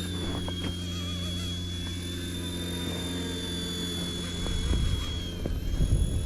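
Mini Consuela RC helicopter in flight: the high whine of its electric motor over the steady buzz of its rotor. The whine dips slightly in pitch about five seconds in, and low rumbles come near the end.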